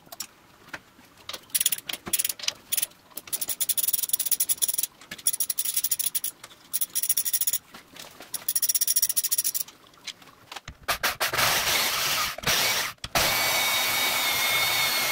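Ratchet wrench clicking in quick runs on a car transmission's shifter, followed from about eleven seconds in by a horizontal band saw running steadily through steel, with a faint high whine.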